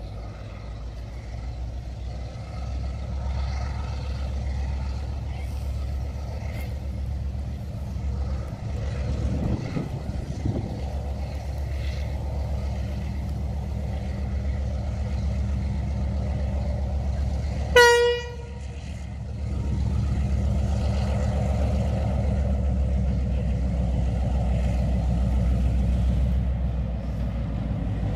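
Diesel locomotive engine running as the train approaches, its low drone getting louder, with one short, loud blast of the locomotive's horn about two-thirds of the way through.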